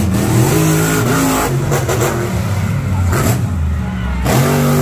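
Big-engined mega trucks revving hard on a dirt track. The engine note climbs and drops in pitch several times.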